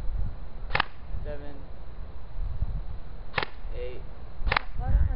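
Airsoft gun firing three single shots, sharp pops about a second in, then two more a little over a second apart near the end.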